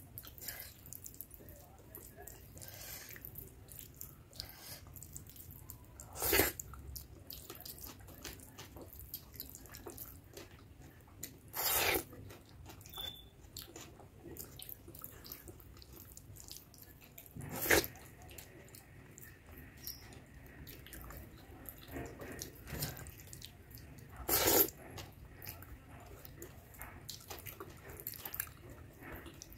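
Fingers squishing and mixing soft khichdi rice with curry on a metal plate, with wet chewing and mouth sounds. Four louder short wet sounds stand out, roughly six seconds apart.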